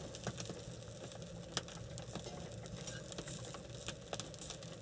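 Faint scattered clicks and light rustling of hands handling food and wrappings on a table, over a low steady background hum.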